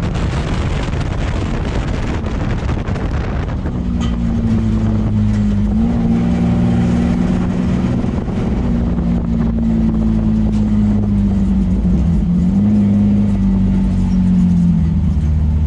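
Race car engine running at fairly steady revs, heard from inside the bare, caged cabin, with only small dips and rises in pitch. Tyre and dirt noise is heavy over the engine for the first few seconds, then eases.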